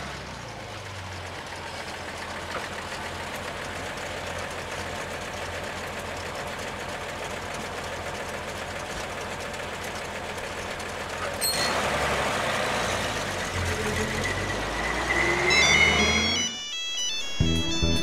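A bus engine running amid street noise, growing louder about two-thirds of the way in. Music comes in near the end.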